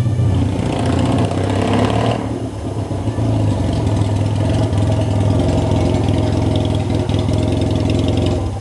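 Yamaha XS650 motorcycle's air-cooled 650 cc parallel-twin engine running steadily and loudly.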